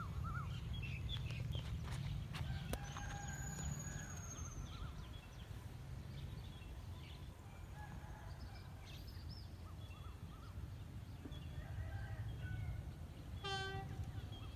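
Outdoor rural ambience: many small birds chirping over a low steady rumble, with a long high whistled note a few seconds in and one short, clear call near the end.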